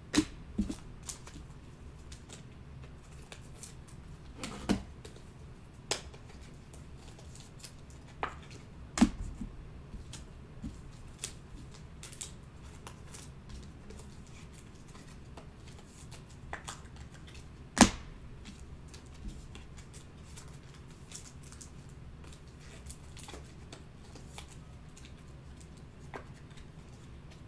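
Sparse light clicks and taps from handling things at a desk, the sharpest about 9 and 18 seconds in, over a low steady hum.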